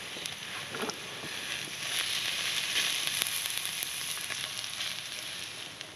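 Schupfnudeln, onions and bacon sizzling in a frying pan, a steady hiss that swells about two seconds in and eases near the end, with scattered small clicks.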